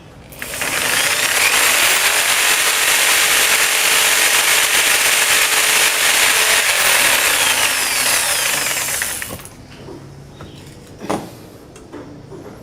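Power tool running on metal for about nine seconds, then stopping; a single sharp knock follows a little later.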